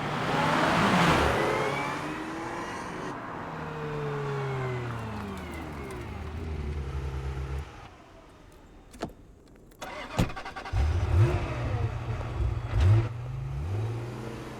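Ferrari F355 Spider's V8 engine revving hard, its pitch falling away over several seconds. After a short lull with two sharp clicks, the engine is revved again, rising and falling.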